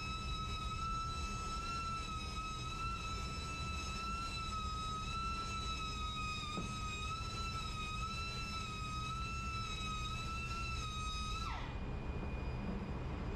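Steady machinery noise: a high, slightly wavering whine over a constant low rumble. Near the end the whine drops sharply in pitch.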